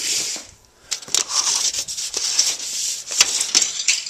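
Carpet and its padding rustling and crackling as they are handled, with many sharp clicks and short scrapes.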